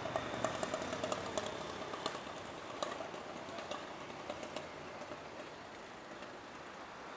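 Steady city and railway-station background hum, with a scattering of sharp clicks and rattles in the first few seconds that thin out later.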